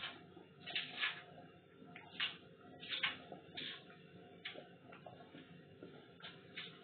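A pot of green bananas and dumplings at a rolling boil, the water bubbling and popping in irregular short bursts over a faint steady hum.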